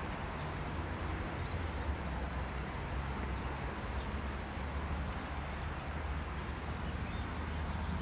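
Diamond DA42 Twin Star's twin engines running steadily at low power, heard as an even low drone while the aircraft waits on the runway before takeoff.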